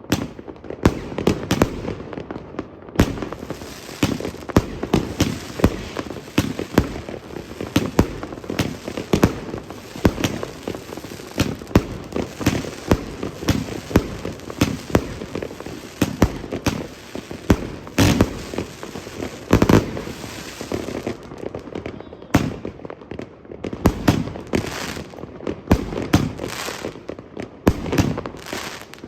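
Excalibur firework cake firing a rapid, continuous volley of shots and bangs. The volley is densest for most of the time and becomes more spaced out, single bangs about two-thirds of the way through.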